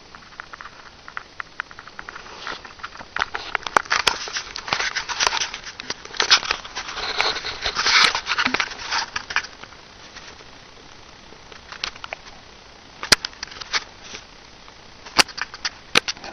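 Close rustling and crackling with many sharp clicks, densest in the first half, then a few isolated clicks near the end.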